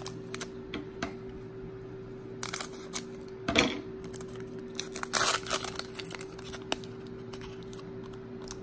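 Foil wrapper of a Pokémon booster pack crinkling in the hands as it is opened, in a few short rustling bursts, the loudest about five seconds in. A steady low hum runs underneath.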